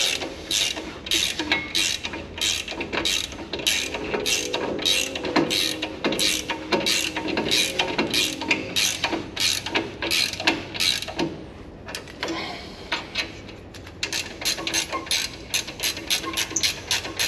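Hand ratchet wrench being worked back and forth on a bolt, its pawl clicking in a rasping burst on each return stroke, about two strokes a second. It pauses briefly about twelve seconds in, then carries on a little faster.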